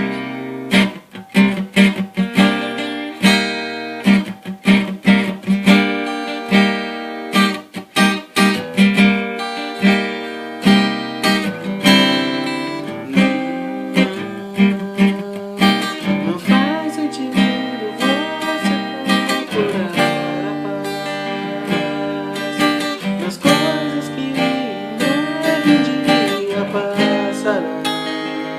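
Acoustic guitar strumming chords in a steady rhythm, the instrumental opening of a song.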